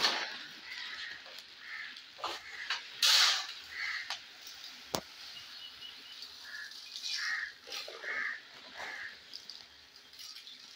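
White granular fertilizer being poured from a cloth sack into a metal basin, heard as a rush of grains and rustling of the sack. Short bird calls sound several times in the background, mostly in the second half.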